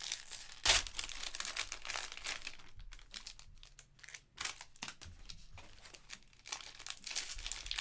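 Trading card pack wrappers of Panini Prizm basketball packs being torn open and crinkled by hand: irregular rustling and ripping, with a loud rip just under a second in and busier crinkling again near the end.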